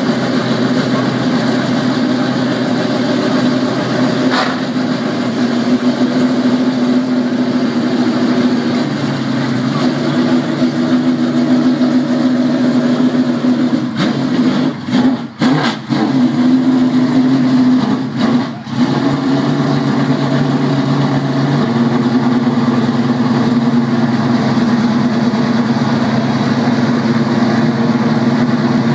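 Jaguar XJR-9 Group C racing car's engine running at a steady idle, its note stepping slightly up and down a couple of times, with a few brief dips near the middle.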